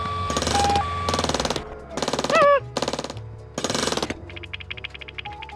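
Electronic construction-themed sound effects: a two-note high-low beeping over rapid rattling bursts like a jackhammer, then a few short noisy bursts with a quick downward chirp, and fast ticking near the end.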